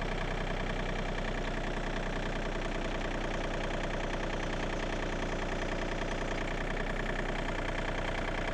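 John Deere 2032R compact tractor's three-cylinder diesel engine running at a steady speed, powering a Land Pride HD25 hydraulic post hole digger whose auger is boring down into loose fill.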